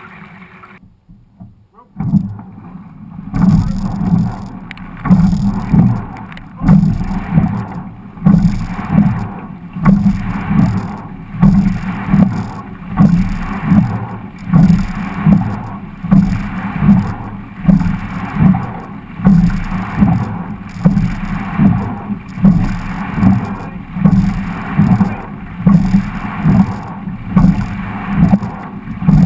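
Quadruple sculling boat rowed hard, heard from the bow: a loud pulse of water rush and rigging noise with each stroke, repeating about every second and a half, roughly 39 strokes a minute. There is a short near-silent gap just after the start, before the strokes begin.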